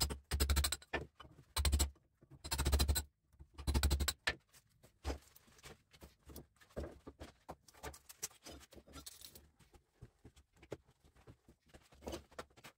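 Hammer striking a small electric motor's copper stator clamped in a steel bench vise: five loud bursts of blows in the first four seconds. Then quieter scattered clinks and rustling as the loose copper windings are handled.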